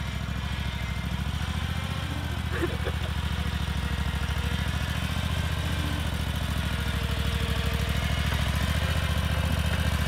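Small backhoe loader's engine running steadily at low speed as the machine drives slowly, its exhaust beating in rapid even pulses, getting slightly louder as it comes closer.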